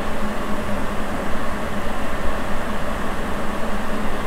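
Sapporo Municipal Subway 9000 series rubber-tyred train running through its tunnel: a steady rumble and hiss of tyres and running gear with a constant low hum, level throughout.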